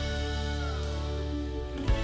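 Background music with steady held notes and a drum hit near the end.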